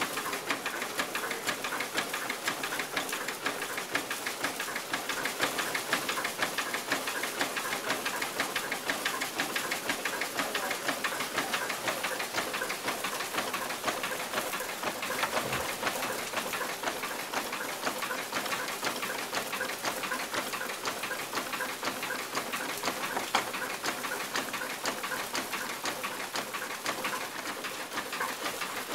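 Old wooden grist mill running: a rapid, steady clatter from the feed shoe's clapper shaking grain down onto the turning millstones.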